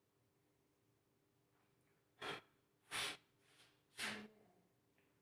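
Three short puffs of breath about a second apart, starting a couple of seconds in, as from blowing dust off the laptop's cooling parts.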